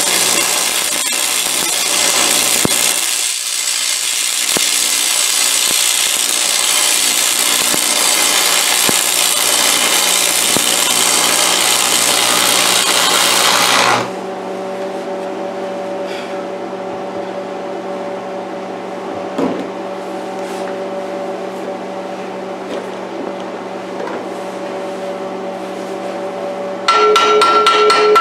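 Stick (arc) welding on steel: the electrode arc crackles and sizzles steadily while a bead is run, then cuts off suddenly about halfway through, leaving only a steady low hum. Near the end, a rapid run of sharp metallic taps from a chipping hammer knocking slag off the weld.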